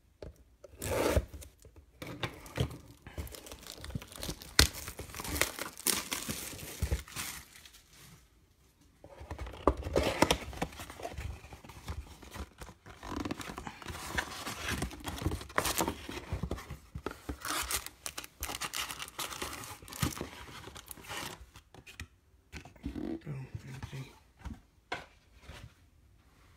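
Plastic wrap being torn and crinkled off a 2018 Topps Chrome Update mega box, then the cardboard box being opened and its foil packs handled. The sounds come in irregular bursts of tearing, crinkling and clicking, with a short lull about a third of the way in, and grow sparser near the end.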